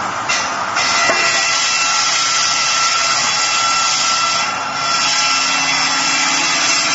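Circular sawmill blade cutting through wood, a steady high-pitched whine over loud hiss. It gets louder about a second in and dips briefly about two-thirds of the way through.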